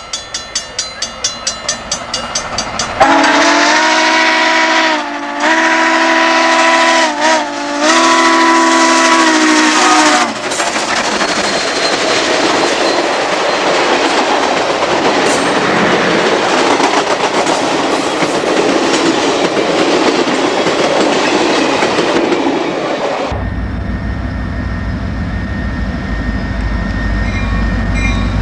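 Southern Pacific 4449, a GS-4 4-8-4 steam locomotive, working toward the listener with steady exhaust beats about three a second. About three seconds in it blows its steam whistle in three blasts, the last the longest. The roar of the engine and train rushing past follows. Near the end the sound cuts abruptly to the steady low drone of a diesel locomotive.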